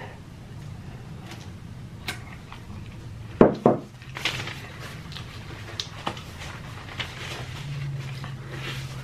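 A bowl is set down on the plate or table with two sharp knocks about three and a half seconds in. Around it are quieter eating mouth sounds: small smacking clicks and breaths, over a low steady hum.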